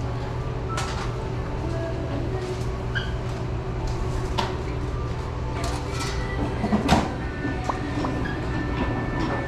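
Sandwich-shop room noise: a steady low hum with scattered clatters and knocks from the prep counter, the loudest about seven seconds in.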